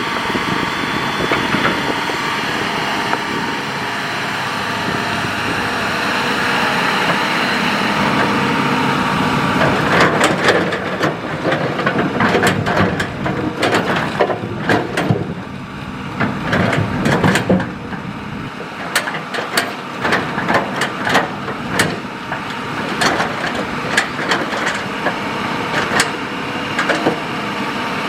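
Hitachi excavator's diesel engine running steadily; from about ten seconds in, many sharp clacks and knocks of stones and gravel as the bucket digs and dumps the fill material.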